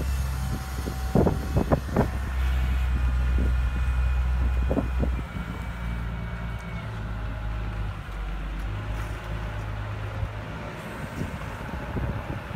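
A Caterpillar IT38G wheel loader's diesel engine running as the machine drives off across gravel. The engine is loud for about five seconds, then grows quieter as it moves away. A few sharp knocks come in the first five seconds.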